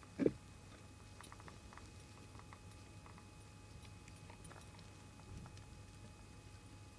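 A fire salamander crawling over loose bark and moss substrate right beside the microphone: faint scattered clicks and rustles, with one short knock about a quarter second in and a softer thump near the end, over a steady low hum.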